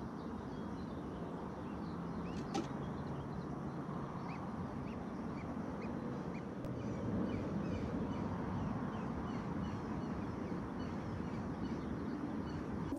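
Outdoor background: a steady rustling hiss with faint, short chirps of small birds scattered throughout, and one sharp click about two and a half seconds in.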